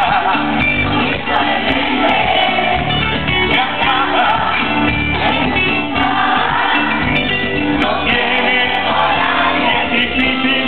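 Live pop concert: a male singer performing with an amplified band, heard loud from among the audience, with the crowd's voices mixed in.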